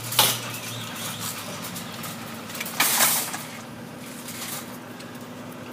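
Vehicle background noise: a steady low hum, with a sharp click just after the start and a brief loud hiss about three seconds in.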